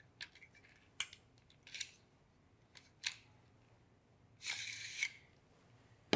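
Light plastic-and-metal clicks from a Peak Design Travel Tripod's carbon fibre leg as its cam lever is opened, then a half-second scraping hiss as the lower leg sections slide out of the upper tube, and a sharp click near the end.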